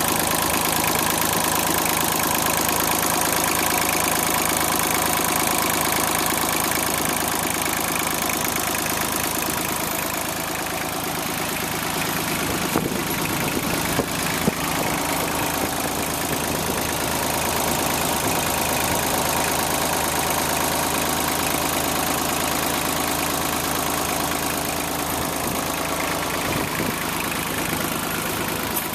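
The four-cylinder diesel engine of a 1990 Laymor 6H sweeper idling steadily. A few brief clicks come about halfway through.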